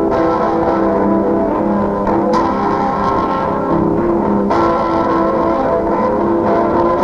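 Lo-fi home-recorded cassette music in a noise/shoegaze style: dense, sustained guitar chords that change about two and four and a half seconds in. It was taped through the air from one cassette recorder to a portable dictation recorder.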